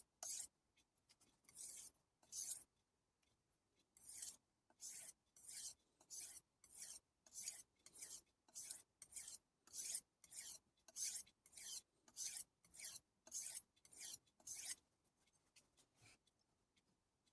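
Steel blade of a Global G-48 santoku knife stroked back and forth on a wet sharpening whetstone, each pass a short scraping stroke. A few strokes come at the start, then a pause, then a steady run of about twenty strokes at roughly two a second that stops a few seconds before the end.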